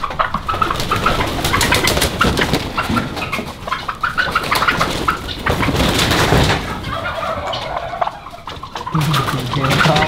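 A pen of three-month-old turkeys calling and flapping as they scramble away from someone trying to catch them, a busy clatter of wingbeats and scuffling mixed with short calls.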